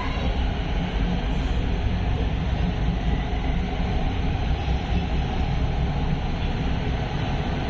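Elevated metro train running along the track, heard from inside the car: a steady rumble and hiss of wheels and motors, with no distinct wheel clicks.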